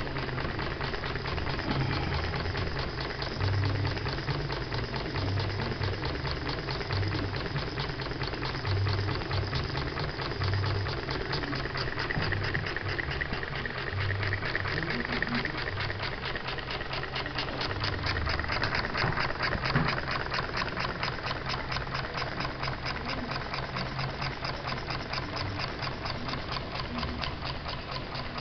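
Small model steam engine built to an "Elmer" design, running on live steam at about 14 psi with a fast, even clicking rhythm from its exhaust and moving parts.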